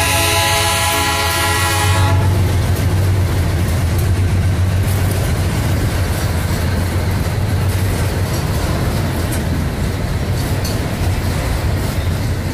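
A diesel freight locomotive's air horn sounds a chord and cuts off about two seconds in. Hopper wagons then roll past close by: a steady rumble of steel wheels on the rails, with repeated clicks.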